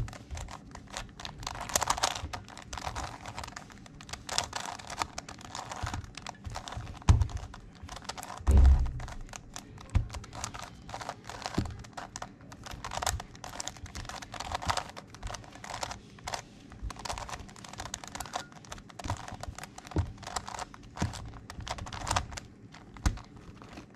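Megaminx puzzle being scrambled by hand: rapid, irregular clicking and clacking of plastic faces turning, with a heavier knock about eight seconds in.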